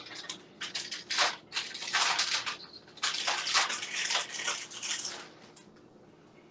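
Dry rustling and shaking in irregular bursts for about five seconds as cheese is shaken out of its container onto the lasagna roll-up filling.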